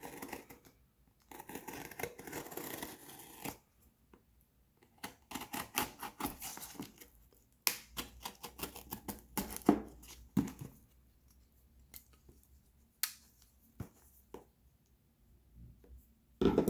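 A shipping package being cut and torn open with a small knife: about two seconds of slitting and tearing, then irregular rustling of the packaging broken by scattered sharp clicks and taps.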